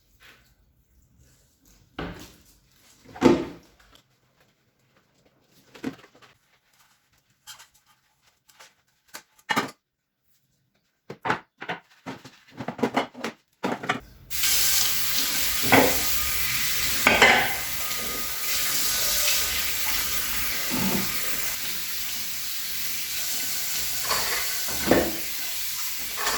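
Kitchen utensils knocking and clinking against pots and dishes at scattered moments, then about halfway through food starts sizzling in a hot pan, a steady hiss with a few clinks of stirring.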